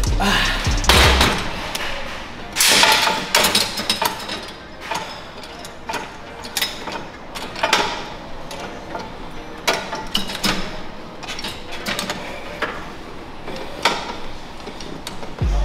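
Leg extension machine in use: irregular metallic clanks and clicks from its weight stack and moving lever arm, loudest in the first few seconds and sparser after.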